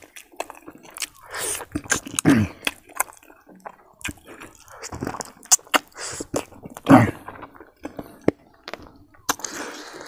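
Close-miked chewing and lip-smacking of a person eating stewed buffalo leg meat and rice with their fingers. The sound is made of irregular short clicks and smacks, with a couple of brief low murmurs from the mouth.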